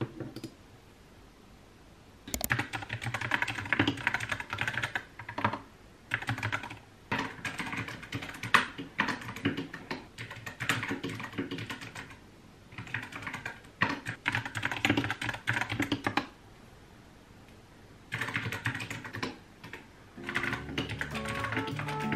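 Fast typing on a mechanical keyboard, in runs of a few seconds with short pauses between. Music with a bass line comes in near the end.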